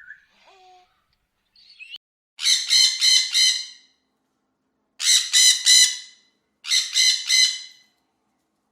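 Pet bird squawking in three loud bursts, each a run of three or four quick, rasping screeches.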